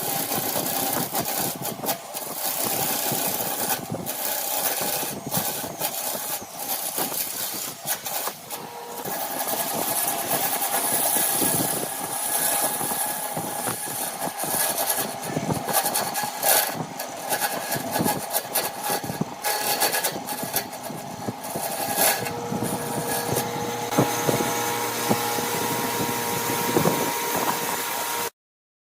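Lathe running while a tool works the spinning piece: a steady hiss and hum broken by many irregular clicks and scrapes. It cuts off suddenly near the end.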